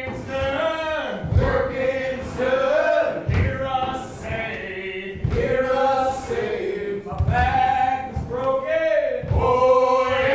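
Men's voices singing a cappella in harmony, a chain-gang work song, with a low thud about every two seconds marking the beat.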